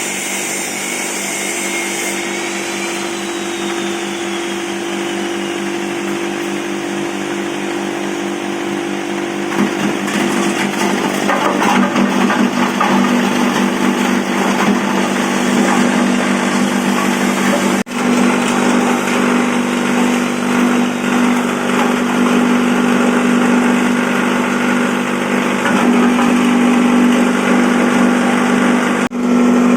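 Electric corn cob grinding machine running with a steady hum, growing louder and rougher about ten seconds in and staying so, with two very brief breaks.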